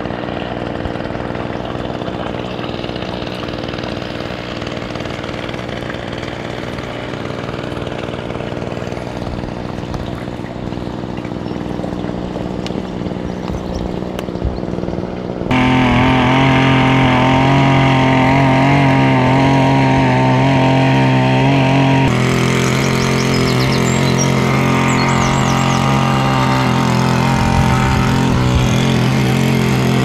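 A steady engine drone that gets louder and changes in tone about halfway through. Faint high chirps come in over it in the last few seconds.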